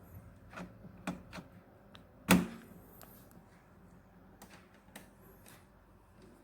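Light clicks and knocks of a cable plug and connector being handled and pushed into the TV, with one sharper knock about two seconds in.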